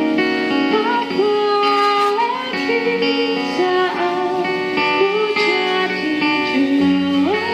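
Live music: plucked guitars holding chords under a melody line that slides smoothly from note to note.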